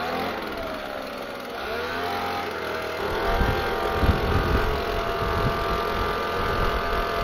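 A car engine revving, with its pitch rising and falling, then running at a steady pitch; wind gusts buffet the microphone from about three seconds in.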